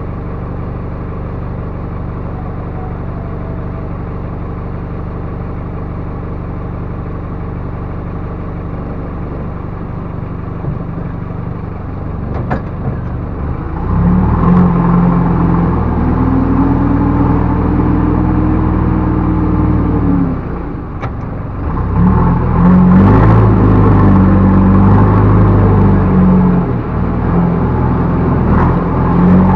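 Backhoe loader's diesel engine idling steadily, then revving up to a louder, heavier working note about halfway through, easing briefly and picking up again, with a couple of sharp clanks.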